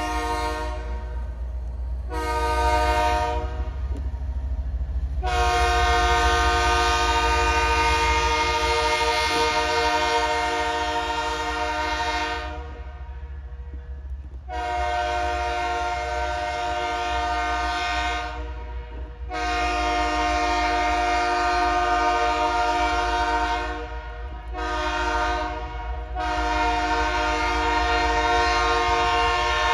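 CN GE "GEVO" diesel locomotives sounding their multi-chime horn in a string of long blasts with short ones between, ending in the long-long-short-long grade-crossing pattern. The diesel engines rumble low and steady beneath the horn.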